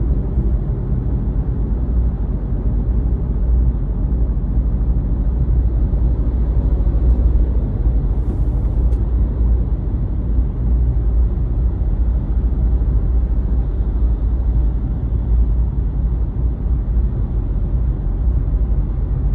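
Steady low rumble of a car heard from inside the cabin while driving, engine and road noise with no sharp events.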